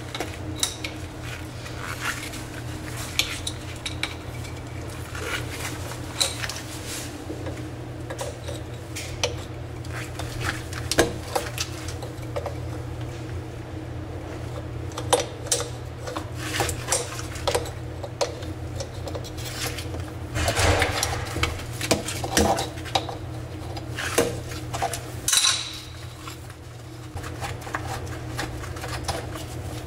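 Metal wrench clinking and ticking against the hose nut and angle stop valve in irregular sharp clicks and clanks while the nut is worked loose; the nuts are seized with rust. A steady low hum runs underneath.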